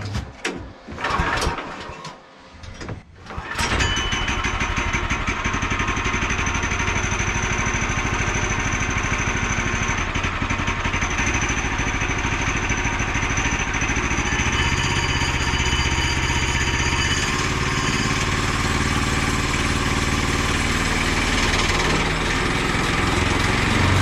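Woodland Mills HM122 sawmill's small gas engine being pull-started from cold. After a few pulls in the first three seconds it catches about three and a half seconds in and then runs steadily.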